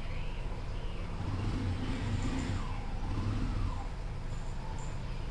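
A motor vehicle engine running: a steady low rumble with a fainter whine that wavers up and down in pitch.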